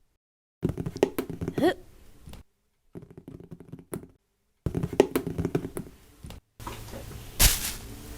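A run of short cut-together sound-effect clips with abrupt silences between them: repeated knocks and handling thuds, then a hissing noise with one loud thud near the end.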